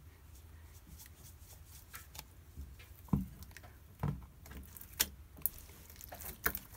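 Clear-glue glitter slime being handled and kneaded by hand: scattered soft clicks and squelches, with two dull thumps about three and four seconds in.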